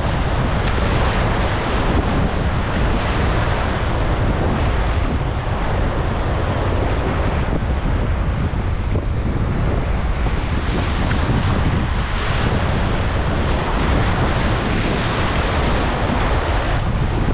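Fast, above-normal river current rushing and splashing in whitewater waves around a kayak, with wind buffeting the microphone in a steady low rumble.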